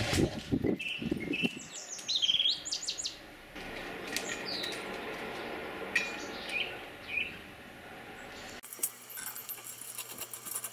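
Small birds chirping in short rising calls, with knocks and clicks of the steel tow-bar beam and its bolts being handled against the car body, and a run of quick clicks near the end.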